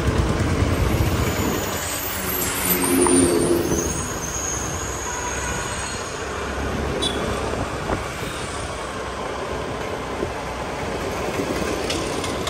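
Street traffic heard from a moving scooter: a low rumble of wind and road noise over the scooter's engine and the surrounding autorickshaws and cars. A passing vehicle briefly gets louder about three seconds in, with a short pitched tone and a thin high hiss.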